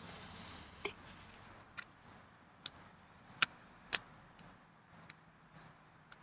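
A cricket chirping steadily, short high chirps about twice a second, with a few sharp clicks scattered among them. A faint hiss of a draw on a disposable vape is heard in the first second.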